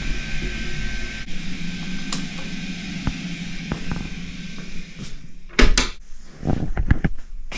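A wooden wardrobe door being opened and shut, with clicks and a cluster of sharp knocks in the last couple of seconds. A steady hum stops a little over a second in.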